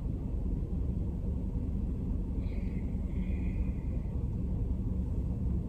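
Steady low rumble inside a car's cabin, with a faint high tone for a second or two in the middle.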